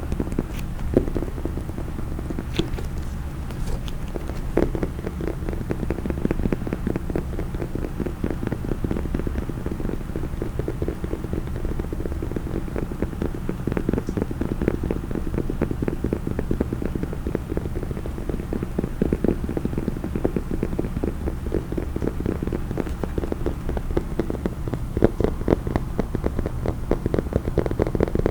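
Fast, continuous tapping on a case, many quick taps a second, over a low steady hum.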